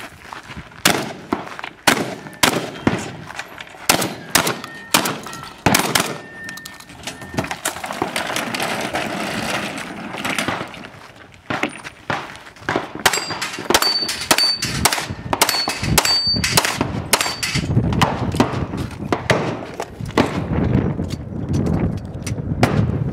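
Competition gunfire from a shotgun/pistol stage: many shots in quick strings with short pauses between. Steel targets ring after some hits, with brief clear tones.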